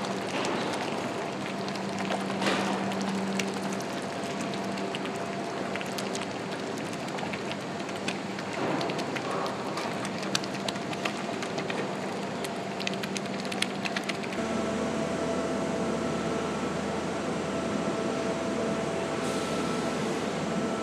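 Foundry floor noise: a steady hum with many sharp crackles and clicks while a forklift-held ladle pours molten metal into a furnace. About fourteen seconds in, it changes to a steadier machine hum with several steady tones.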